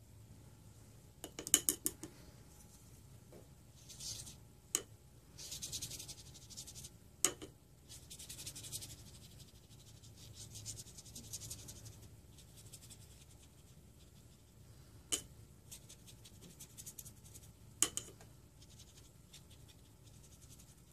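Watercolour brush brushing across textured paper in short scratchy strokes, with several sharp clicks and taps in between.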